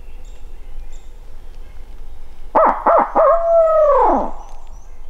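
Barred owl hooting: about halfway through, three quick hoots and then one long hoot that drops steeply in pitch at the end.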